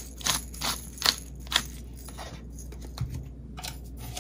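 Hand-held pepper mill being twisted, grinding black peppercorns in a quick series of short grinding strokes, about three a second, that thin out after about a second and a half. A soft knock about three seconds in.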